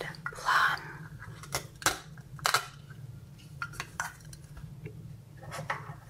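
Plastic toy knife cutting a velcro-joined toy plum: a short rasp as the halves come apart, then hard plastic toy pieces clicking and knocking against a plate several times.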